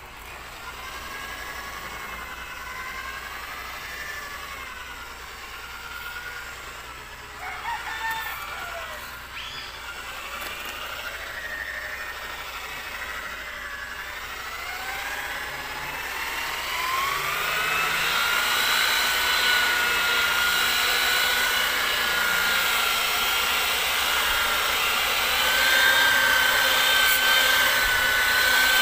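Electric rotary polisher with a wool pad buffing rubbing compound on a car's paint; the motor's whine wavers in pitch as the pad is pressed and moved on the panel. About two-thirds of the way through the whine rises and settles into a steady, louder, higher tone.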